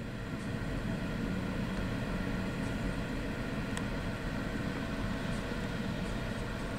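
Diesel locomotives of an approaching heavy coal train running, a steady low rumble.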